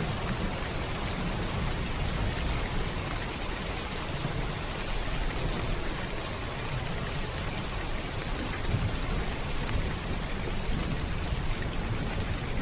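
Heavy rain falling steadily on a roof, a dense even patter with a low rumble underneath.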